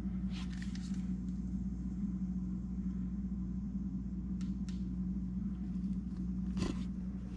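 A steady low hum and rumble, with a few short clicks or knocks over it, the loudest near the end.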